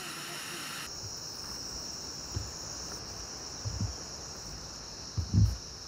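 Steady high-pitched drone of insects in mountain forest, starting about a second in, with a few short low thumps, the loudest near the end.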